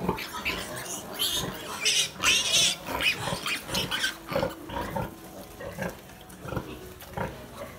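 Newborn piglets squealing and grunting as they jostle to nurse at the sow, in short irregular calls, with the loudest, highest squeals between about one and three seconds in.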